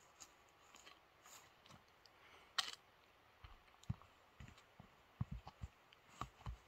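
Very quiet camera or phone handling clicks, then soft, irregular footsteps on a forest trail in the second half.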